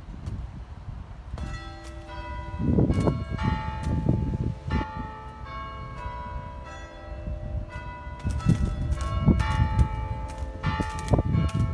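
Church clock chiming on the tower's bells: a tune of single struck bell notes, each ringing on, beginning about a second and a half in, with a quicker run of strikes in the later part. Wind rumbles on the microphone underneath.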